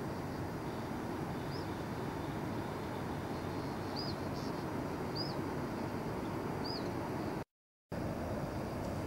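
Steady low rushing background noise, with a bird calling a short, high, arched note four times; the sound cuts out for a moment near the end.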